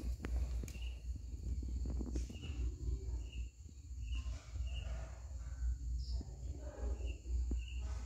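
Background ambience: a steady low rumble, faint voices and short high chirps that often come in pairs.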